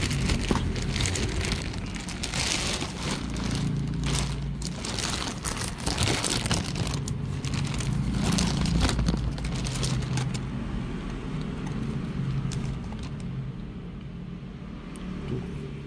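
Keyboard packaging being handled and opened: irregular crinkling and rustling of plastic and cardboard that thins out after about ten seconds, over a steady low hum.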